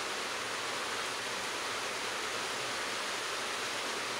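Steady, even background hiss with no other sounds in it.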